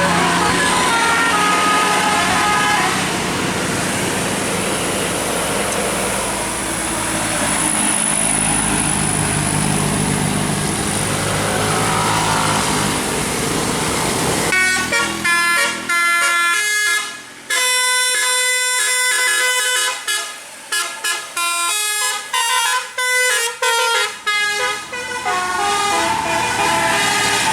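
Bus engine and traffic noise with faint horn tones, then about halfway a bus's telolet basuri multi-tone air horn plays a fast melody of short, clipped toots with brief gaps between them.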